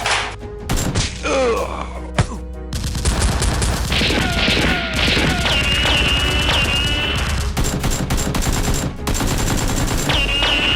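Gunfire sound effects: a few single shots, then rapid automatic fire from about three seconds in, with short high whines cutting through. Background music plays underneath.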